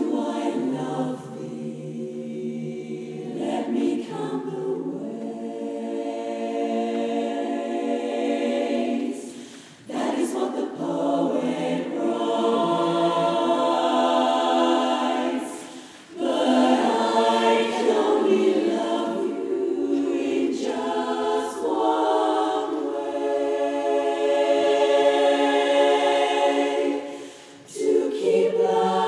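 Women's barbershop chorus singing a cappella in close four-part harmony, with three brief pauses between phrases.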